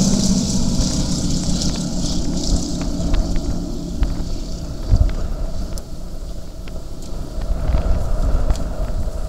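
Aero engines of two biplanes droning as they fly away, the sound fading over the first few seconds, with wind rumbling on the microphone.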